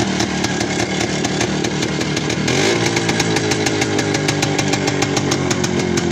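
ČZ 175 type 505's single-cylinder two-stroke engine running steadily with a rapid, even beat, just brought back to life after years standing. About two and a half seconds in the revs pick up a little, then slowly sink again.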